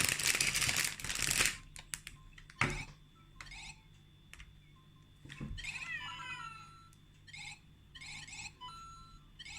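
LEGO Super Mario interactive figure switched on and playing electronic sound effects from its small speaker: falling chime-like tones, then a few short beeps. It opens with a loud rattle of handling noise lasting about a second and a half, followed by a couple of clicks.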